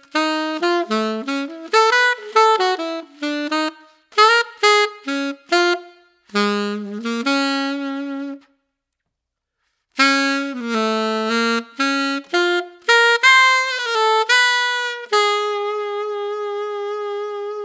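Unaccompanied alto saxophone played through a JodyJazz HR* Custom Dark mouthpiece with a 2.5-strength reed, a low-baffle, large-chamber design meant for a dark jazz tone. It plays a jazz standard melody in short phrases, with a pause of a second or so about halfway, and ends on a long held note. The tone is a warm, dark alto sound with a lot of core.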